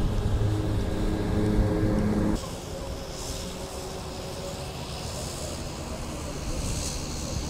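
Steady pitched drone of a radio-controlled model airplane's motor and propeller, which cuts off abruptly about two and a half seconds in, leaving a fainter, even background hiss.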